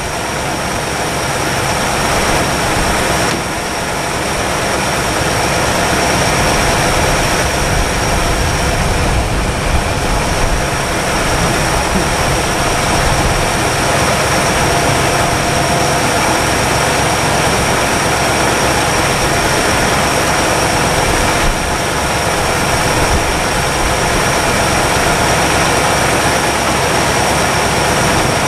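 1962 Chevrolet engine running steadily at idle while warming up after 35 years parked, still somewhat noisy before reaching operating temperature.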